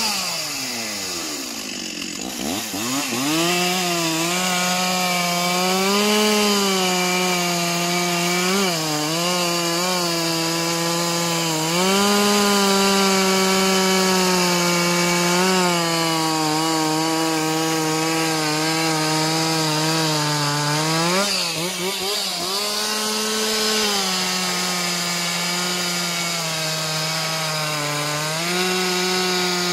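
Stihl two-stroke chainsaw cutting through a large log at full throttle, its engine pitch sagging briefly several times as the chain loads in the wood. In the first couple of seconds the throttle falls off and the pitch drops steeply, then climbs back up as the saw goes into the cut.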